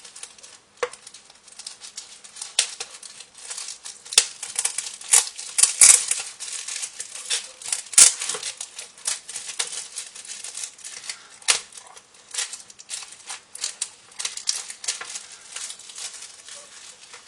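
Scissors snipping through the plastic film on a frozen dinner tray: a long run of irregular, short, crisp clicks, the loudest about eight seconds in.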